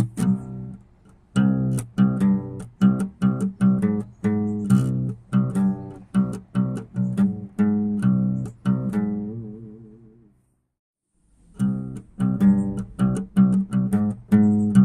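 Background music of plucked guitar notes at a steady pace. It fades away and stops for about a second around two-thirds of the way in, then starts again.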